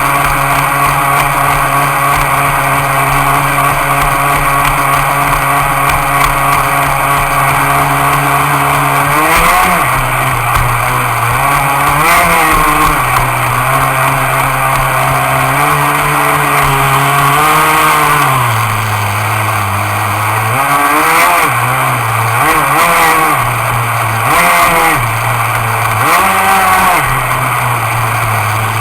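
Engine of a CEN Gray Thunder RC boat, loud, running at a steady pitch for about nine seconds, then revving up and down again and again as the throttle is opened and eased.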